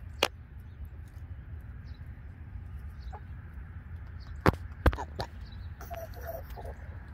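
Hens clucking quietly in short calls. A sharp tap comes just after the start, and three more come close together around the middle.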